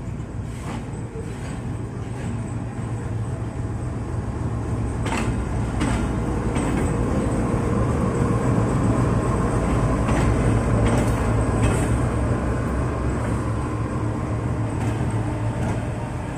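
Diesel-electric locomotive moving slowly past at close range: a steady engine drone that grows louder through the middle as it passes, with several sharp metallic clanks.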